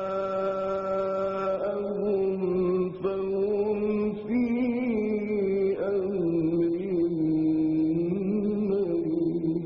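A man reciting the Quran in the melodic mujawwad style, drawing out one long ornamented phrase whose held pitch slowly wavers, steps down and rises again.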